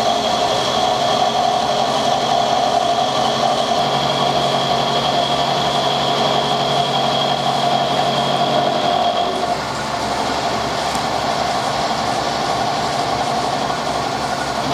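Milling machine cutting the jaw of a spanner: a steady machining noise with a high whine, which drops away about nine and a half seconds in as the cut changes.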